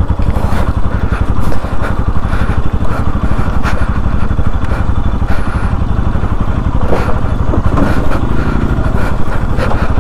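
Bajaj motorcycle's single-cylinder engine running steadily at low revs, with scattered knocks and rattles from the bike jolting over a rough dirt track.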